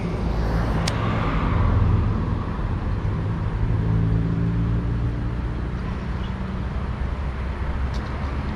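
A car's engine running steadily on the road close by, a low hum that swells slightly and eases off. A single sharp click sounds about a second in.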